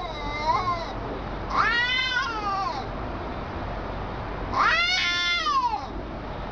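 Domestic cat yowling at another cat in a face-off: a short call at the start, then two long wavering yowls, each rising and then falling in pitch, the warning calls of a tense cat standoff.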